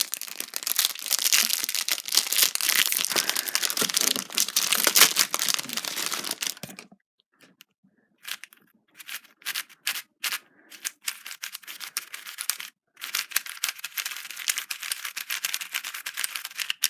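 Plastic packaging rustling and crinkling for about seven seconds. After a brief pause come quick, irregular clicks and clacks of a MoYu MGC 4x4 speed cube being turned.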